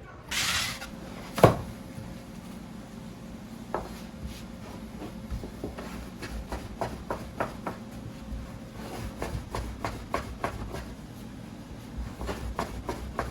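Kitchen handwork on a wooden board, as in making dumplings: irregular light taps and rubbing, with one sharp knock about a second and a half in.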